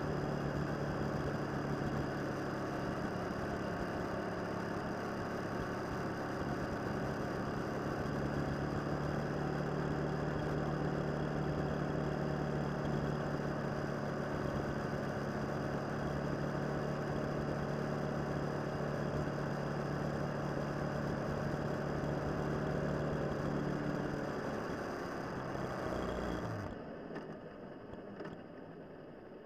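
Motorcycle engine running at a steady speed under a wash of wind and road noise. Near the end the engine note falls as the bike slows, then the sound drops off sharply to a much quieter engine.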